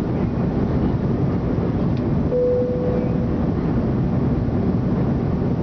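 Jet airliner cabin noise on descent: a steady rush of engines and airflow heard from a window seat near the wing. A short steady tone sounds once about two seconds in and fades away.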